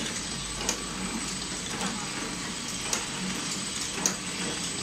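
Pillow-bag flow-wrap packing machine running: a steady mechanical noise with a sharp click about once a second, at an even beat.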